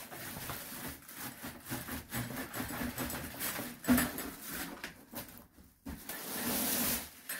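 Clear plastic wrapping rustling and crinkling as it is pulled down off a stainless steel brewing vessel, with one sharper knock about four seconds in.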